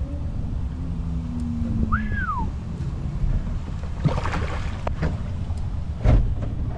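Water lapping and splashing against a kayak hull right at the waterline, with a few sharp knocks about four and six seconds in. About two seconds in comes a single short whistle-like call that rises and then falls.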